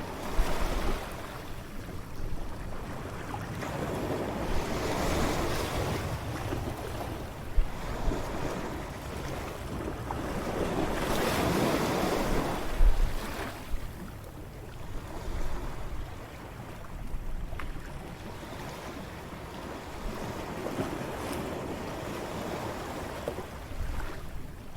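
Ocean waves breaking and washing on a shore, rising and falling in slow surges. Wind buffets the microphone with a few low thumps.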